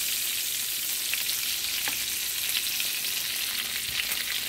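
Oxtail pieces sizzling in hot oil in a skillet, with a few scattered pops, browning on the burner's leftover heat after it has been switched off.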